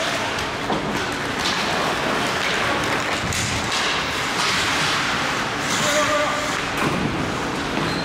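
Live ice hockey play in an indoor rink: skates scraping the ice, sticks and puck clacking, and repeated thuds against the boards, with players and spectators calling out.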